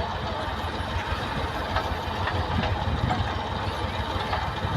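Engine of heavy machinery running steadily, a deep even rumble.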